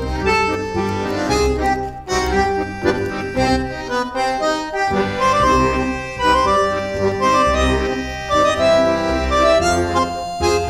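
Background instrumental music: a melody of held notes over a steady pulsing bass.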